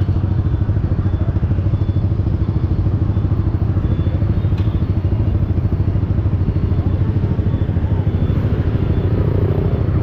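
Yamaha XSR 155's single-cylinder four-stroke engine running through an aftermarket replica Akrapovic exhaust at steady revs, its note holding one pitch without revving up or down.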